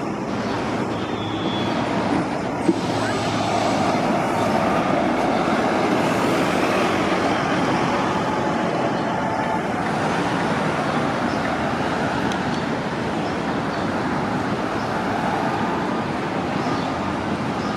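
City transit buses running and moving, a steady engine and road noise that grows louder about three seconds in and then holds. A single sharp click comes just before it swells.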